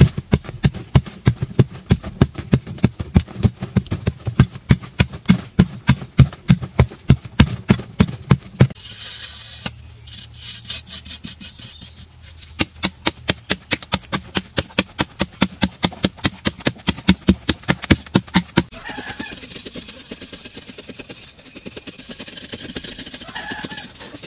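A hand tool striking into a packed-earth wall in rapid, regular blows, about three or four a second. About nine seconds in the blows turn lighter and a steady high-pitched whine sounds over them. Near the end this gives way to rough scraping over the earth surface.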